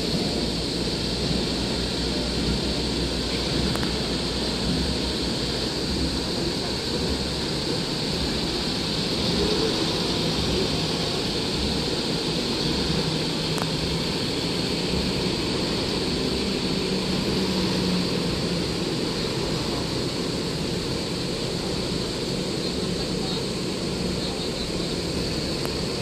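A column of heavy six-wheel military trucks and truck-mounted howitzers driving past, their engines running under a steady rush of noise.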